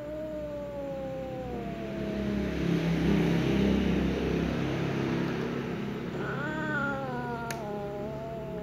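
Cat caterwauling in a standoff with another cat: a long drawn-out yowl sliding down in pitch, a louder low growl in the middle, then a second yowl that rises and falls again near the end.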